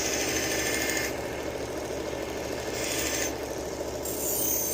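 Belt grinder running steadily while a knife blade is drawn across the moving stropping belt in three passes. Each pass adds a hiss over the motor hum: the final stropping of the edge.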